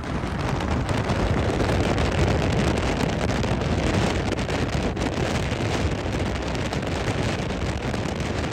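Wind buffeting the microphone over a steady low rumble, with no distinct tones or separate events.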